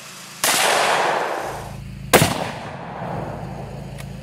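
A Mosin-Nagant bolt-action rifle firing a 7.62x54R round: a sudden loud blast about half a second in that rings on for about a second. A sharper, louder crack follows about two seconds in.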